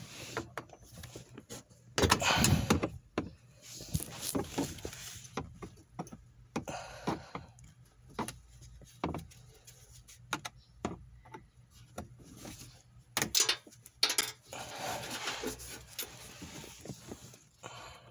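Scattered clicks, knocks and rustling of a socket wrench and parts being handled on the hybrid battery pack's metal case while the cooling fan is unbolted. There is a louder clatter about two seconds in and another about thirteen seconds in.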